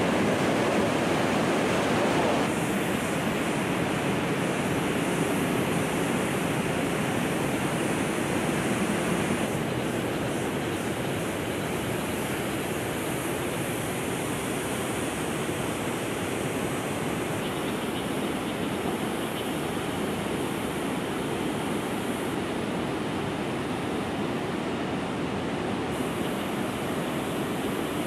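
Steady rush of a fast mountain river's white water, an even roar without pauses.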